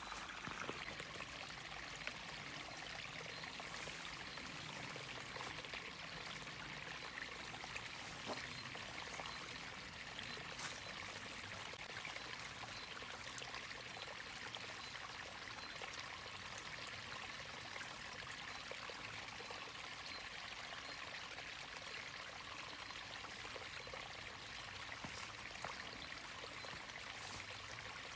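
Small forest creek flowing and trickling steadily, with a few faint clicks over the running water.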